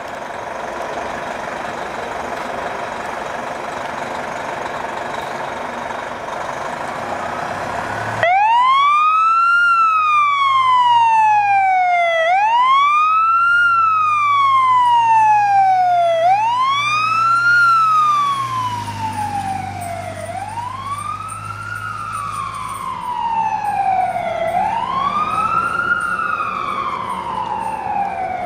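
Fire engine's siren cutting in about eight seconds in and wailing in slow up-and-down cycles of about four seconds, each a quick rise and a slower fall, over a low engine rumble. The siren grows fainter in the second half as the truck pulls away.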